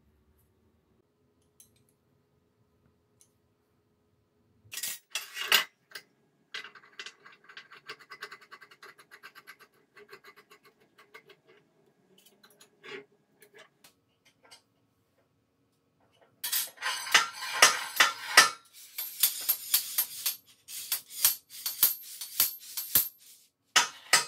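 Steel parts of a homemade slide hammer clinking, scraping and rattling as they are handled and fitted together on a steel welding table, in short bursts, with the busiest and loudest clatter in the last third.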